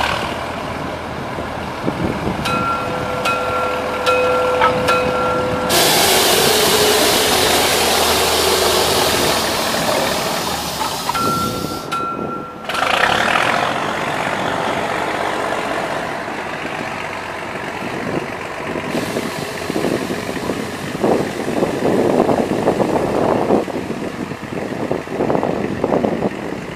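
Hudswell-Clarke 0-6-0 diesel-mechanical narrow-gauge locomotive running as it moves along the track, passing close and pulling away. A thin steady tone comes and goes in the first seconds, and about six seconds in a loud hiss lasts for several seconds.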